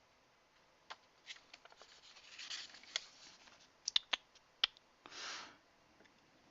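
Paper leaflets and packaging being handled: faint rubbing and sliding of paper, a few sharp little ticks about four seconds in, and a short swish of paper near the end.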